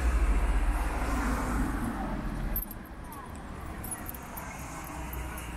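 Street traffic noise from cars passing on a city bridge road. A heavy low rumble in the first half cuts off abruptly about two and a half seconds in, leaving a quieter, steady traffic hum.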